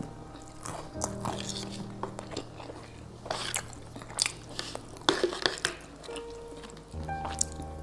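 Close-up eating sounds: bites and chewing, with several crisp crunches, over soft background music.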